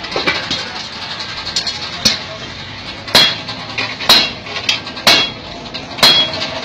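Blacksmith's hammer striking metal in a steady rhythm of about one blow a second, each blow leaving a short metallic ring.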